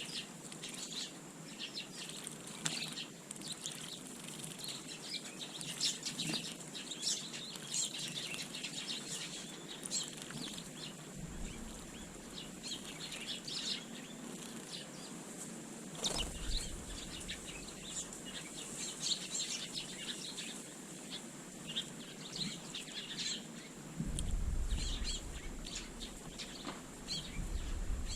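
Small garden birds chirping in many short, high calls with wing flutters, the chirps overlapping throughout. A low rumble comes in twice, for a few seconds each time.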